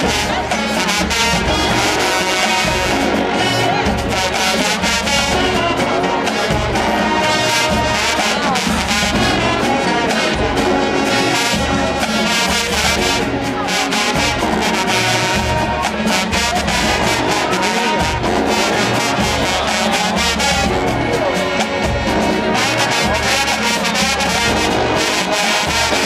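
HBCU show-style marching band playing loudly: full brass section of trumpets, trombones and sousaphones over the drumline's steady beat.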